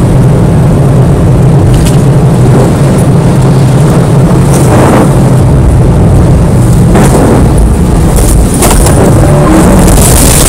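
A vehicle engine running loudly and steadily, with no letup.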